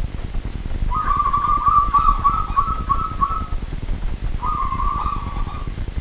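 Zebra dove (perkutut) singing its cooing song: a run of quick linked coo notes starting about a second in, then a shorter phrase near the end, over a steady low rumble.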